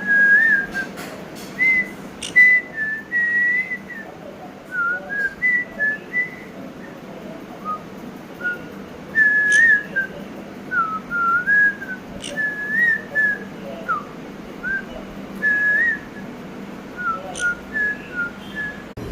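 Pet parrot whistling: short, clear whistled notes, some gliding up or down, in loose phrases, with a few sharp clicks among them.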